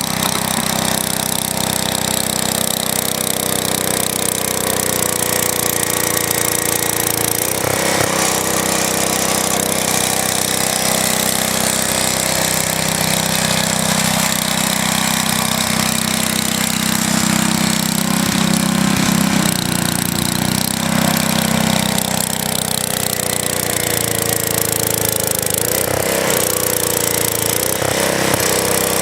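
Vintage Wheel Horse garden tractor engine running steadily while plowing snow, its pitch dipping briefly about a quarter of the way in and twice more near the end.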